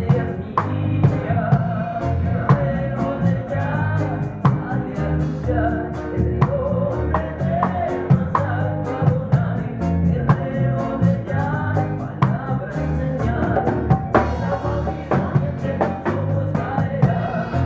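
Live reggae band playing: bass, drums, electric guitars and keyboards, with a wavering lead melody over the top and a steady drum beat.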